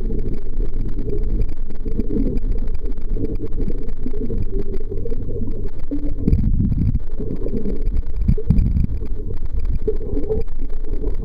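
Muffled low rumble of water movement heard through an underwater camera housing, with irregular stronger surges midway through.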